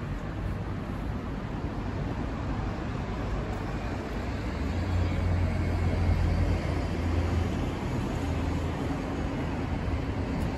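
City street traffic: a steady wash of road noise, with a vehicle's low engine rumble swelling up in the middle and easing off again.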